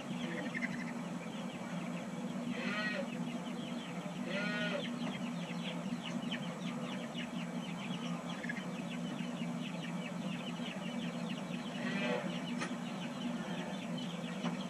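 Young calves bawling in a barn, three short calls about three, four and a half and twelve seconds in, over a steady low hum. A fast, high chattering runs through the middle.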